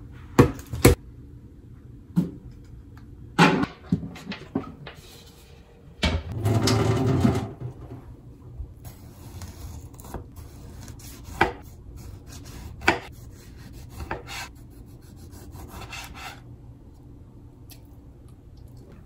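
Kitchen handling sounds: a few sharp knocks as containers and food are handled, a brief rushing noise about six seconds in, then a knife slicing a tomato, its blade tapping the cutting board once about every second and a half.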